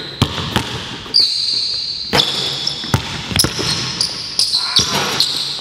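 Basketball bouncing on a hardwood gym floor in an irregular dribble, with high squeaks in between from sneakers on the court.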